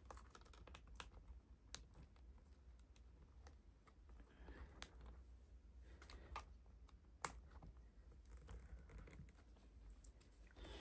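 Faint, scattered small clicks and taps of a small screwdriver working the metal hinge screws of a laptop chassis, with one sharper click about seven seconds in.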